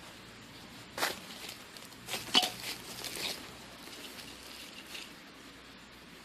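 A few short crackles and rustles, the loudest about two and a half seconds in, from a hand handling a seedling's cut-open plastic bottle pot among dry leaves.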